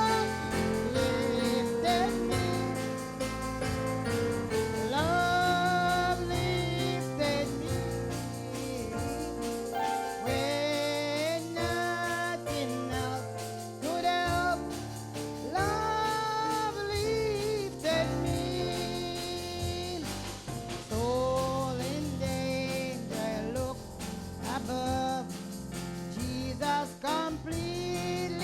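A gospel worship song: a woman sings held, gliding notes with vibrato over instrumental backing.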